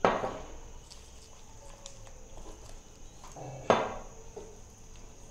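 A spatula stirring indigo paste in a stainless steel bowl, with two sharp knocks against the bowl that ring briefly, one at the start and one a little before four seconds in, and faint stirring between them.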